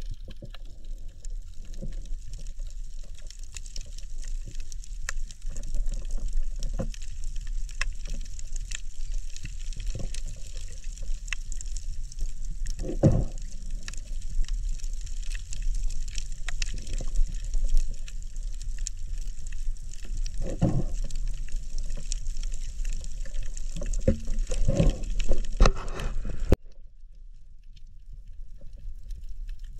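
Water around an underwater camera: a steady sloshing wash with scattered fine clicks and a few louder low thumps. It drops off suddenly near the end to a quieter hiss.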